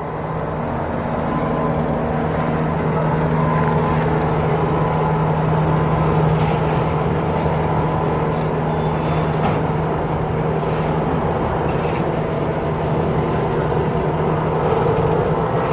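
Heavy machinery engine running steadily with a constant low hum, with a few faint clicks through it.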